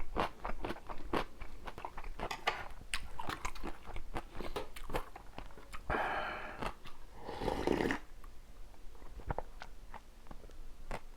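Close-miked eating: rapid crunching and chewing of food, with many sharp crunches, then two longer breathy rushing noises about six and seven and a half seconds in.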